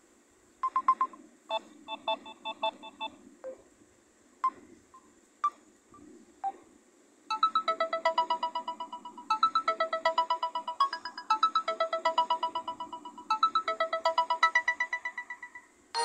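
Phone ringtone previews, one after another: a couple of short electronic beep patterns and a few single plinks, then from about seven seconds in a fast, evenly pulsing run of bright chiming notes that stops near the end.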